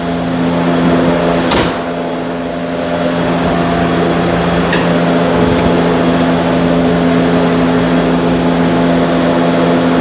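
Lexus IS250's 2.5-litre V6 idling steadily with the hood open, a constant even hum. A single sharp click sounds about a second and a half in.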